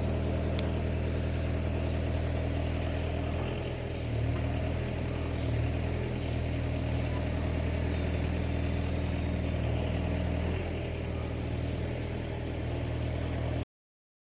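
Engine of a heavy grapple machine running steadily, with slight changes in level as it works. The sound cuts off suddenly near the end.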